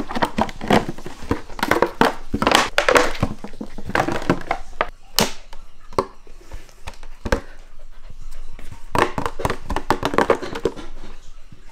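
Thin plastic sheet crinkling and crackling in irregular bursts as a Shiba Inu puppy bites, tugs and snaps at it.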